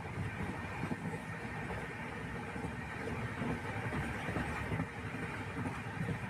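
Steady low rumble and running noise of a moving vehicle, heard from inside as it travels.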